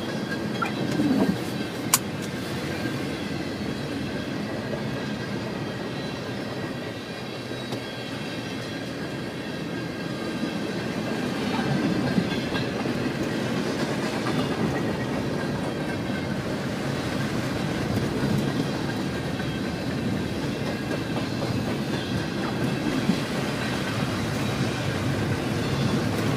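Freight train of tank cars rolling along the track, heard from inside a car driving alongside it, with one sharp click about two seconds in.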